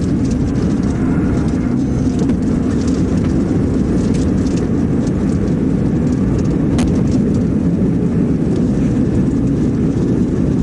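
Steady road and wind noise of a police cruiser travelling at highway speed, heard inside the car, with a single short click about seven seconds in.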